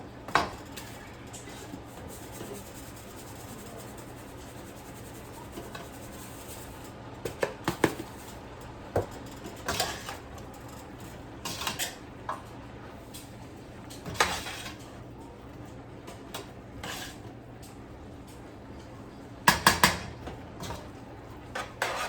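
A utensil clinking and scraping against a cooking pot while cabbage and seasonings are stirred in it. The clanks are irregular, with a quick cluster near the end.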